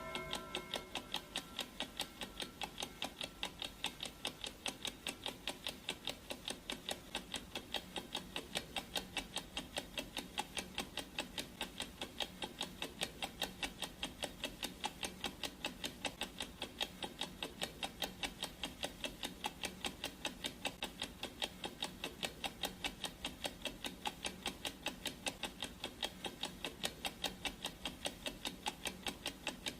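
Clock ticking sound effect: a steady, even run of sharp ticks, with the tail of a ringing tone dying away in the first moment.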